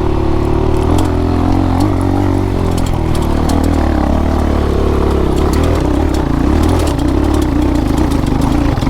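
Off-road dirt bike engine running at low revs, its pitch wavering as the throttle is worked, with scattered clicks and rattles over it, while the bike struggles for traction on a steep, loose trail.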